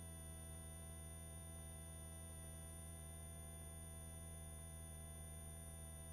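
Faint, steady hum made of many even tones, the helicopter's drone as carried by the headset intercom audio while no one is talking.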